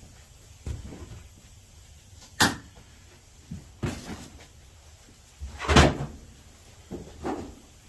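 Scattered knocks and clunks of things being handled, with a sharp click about two and a half seconds in and the loudest thump near six seconds in.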